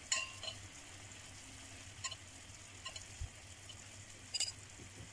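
Marinated chicken pieces sizzling gently in oil and marinade in a non-stick frying pan, with about five light clicks of a spoon against the pan and chicken as leftover masala is spread over them.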